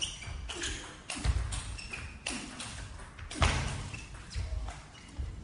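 Table tennis rally: the celluloid ball being struck by the bats and bouncing on the table in sharp knocks about once a second, in a long exchange played from well back.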